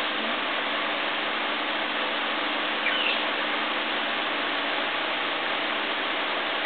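Steady outdoor background hiss with one faint, short bird chirp about three seconds in.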